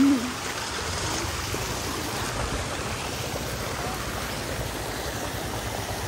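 Steady rushing noise of running water, with a short voice at the very start.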